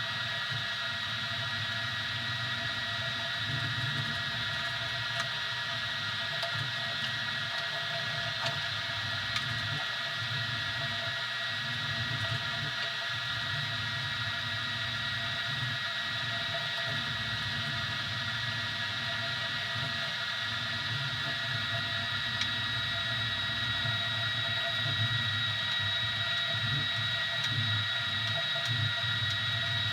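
Easythreed X2 3D printer running mid-print: a steady high whine from its motors, with a fan-like hum underneath that wavers as the print head moves.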